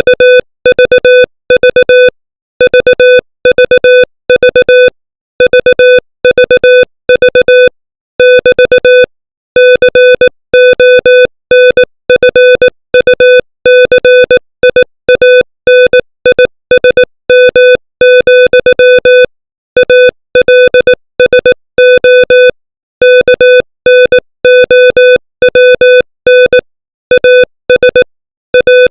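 Morse code sent at 18 words per minute: a single steady tone keyed on and off in dots and dashes, with short gaps between letters and longer gaps between words.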